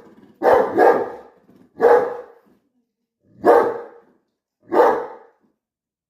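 A dog barking five times, the first two in quick succession and the rest about a second or more apart, at his own image, which he takes for another dog.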